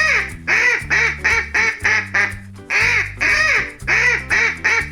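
Duck quacking in a quick run of short quacks, about three a second with a brief pause midway, over background music.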